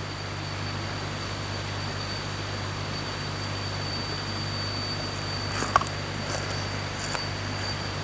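Steady rush of water spilling down a small stepped concrete weir cascade, with a thin steady high tone running over it. A few short crisp crunches of chewing come in the second half.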